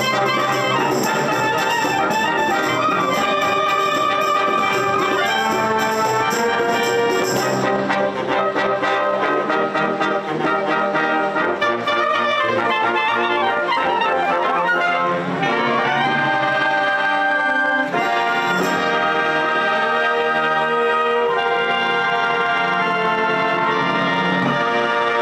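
Instrumental music led by brass, trumpets and trombones playing held notes in a band or orchestral arrangement.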